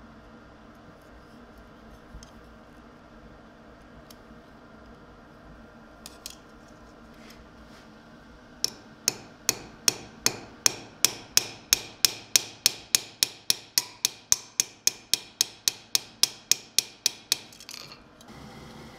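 Ball-peen hammer striking sheet metal on an anvil: a rapid, even run of about thirty light, ringing blows, three or four a second, starting about nine seconds in and stopping shortly before the end. A few faint clicks come before the run.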